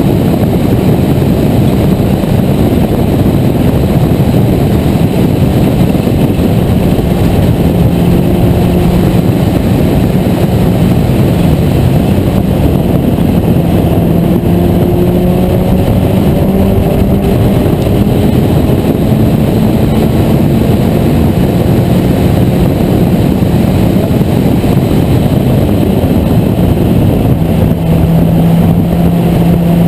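Race car engine heard onboard from the open cockpit at racing speed, its note shifting up and down through a corner and then holding steady, under a heavy rush of wind noise.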